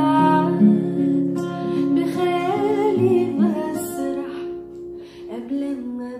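A woman singing a slow Arabic pop melody with no clear words, accompanied by her own acoustic guitar. The voice fades out about five seconds in, leaving the guitar.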